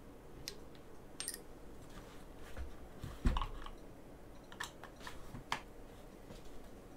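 Irregular light clicks and taps of hands handling the plastic chassis of a Traxxas Slash RC truck and a small hex driver, with one louder knock about three seconds in.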